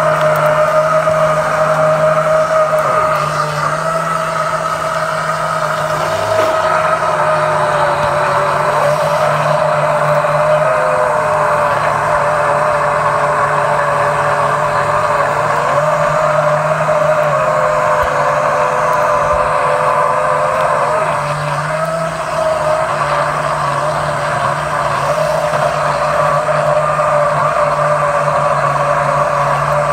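An engine running steadily with a droning hum, its pitch dipping and rising slightly a few times midway.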